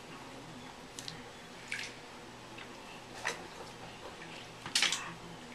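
Bath water splashing and dripping in the tub: four short, separate splashes over a quiet background, the loudest near the end.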